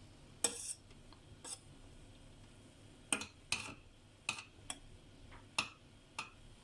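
A series of light, sharp clicks and taps, about eight spread irregularly over several seconds.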